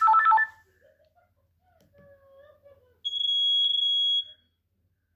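Nokia 6630 mobile phone's loudspeaker playing tones: a quick run of short electronic notes at the start, then one steady high-pitched beep lasting just over a second.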